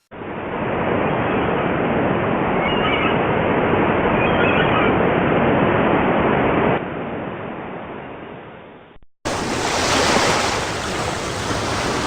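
Steady rushing noise like ocean surf, in two separate clips. The first, duller one has a few faint high chirps, drops and fades out, and cuts off about nine seconds in. A brighter, fuller rushing noise starts a moment later.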